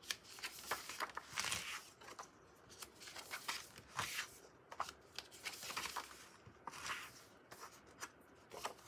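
Sheets of 6x6 patterned scrapbook paper rustling and sliding as hands shuffle them and lay them down on a cutting mat, in a series of short, irregular swishes.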